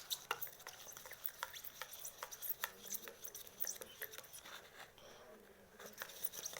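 Hands kneading and stretching sticky homemade glue slime as it sets with activator, making irregular wet clicks and squelches that thin out briefly about five seconds in.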